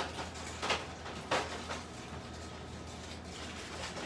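Cookware being handled at a stovetop: two short clattering sounds about a second in, then quieter handling, over a steady low hum.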